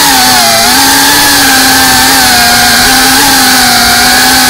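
FPV quadcopter's brushless motors and propellers whining in flight, loud and continuous, its pitch mostly steady with slight wavers as the throttle shifts.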